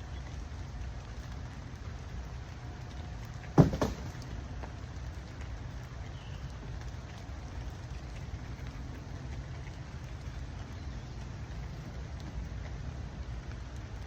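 Steady rain falling, an even hiss, with one sharp loud knock about a quarter of the way in.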